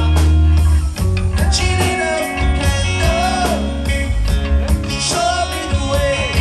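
Live rock band playing through a PA, with electric guitar, bass, drums and a singing voice.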